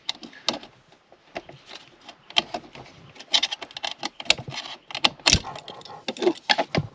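Plastic clips and connectors under a car seat being worked loose by hand: a run of irregular clicks, taps and small rattles, the sharpest click about five seconds in.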